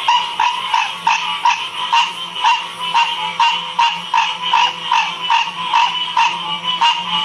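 Chorus of frogs calling, short nasal calls repeating about two to three times a second over a continuous background of many other calling frogs.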